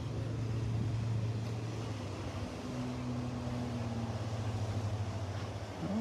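Outboard motor of a center-console fishing boat running past at cruising speed: a steady low drone that dips briefly a little over two seconds in.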